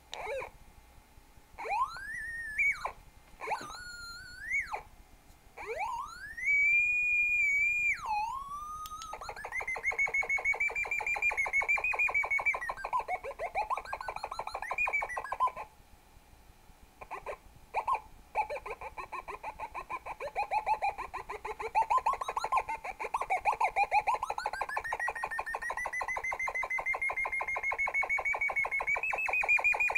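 Buzzy electronic tone from a small loudspeaker driven by an Arduino, its pitch rising and falling as a flashlight's beam on the circuit changes. It begins as separate swoops up and down; from about nine seconds in it turns into a fast-pulsing, wavering tone that drops out for a moment around the middle.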